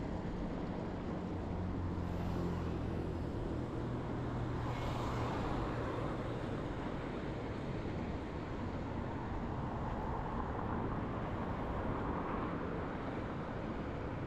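Street traffic heard from a bicycle: motor vehicles passing, with a low engine hum loudest over the first three seconds and swells of passing-car noise about five seconds in and again near the end.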